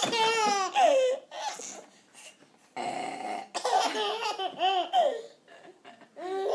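Baby laughing in high-pitched squeals, in three bursts.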